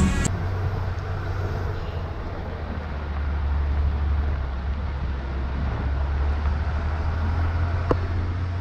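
Bus engine running with a steady low drone and road noise from the tyres on a dirt road, heard from a window of the moving bus.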